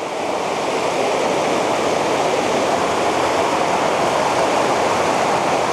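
River water rushing steadily over and around many stones in a fast, rocky stretch.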